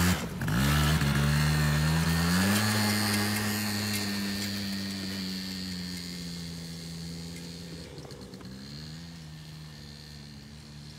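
Small youth four-wheeler's engine revving up as it pulls away, then running steadily and fading as it rides off, with a second rise in revs about eight seconds in. A brief thump right at the start.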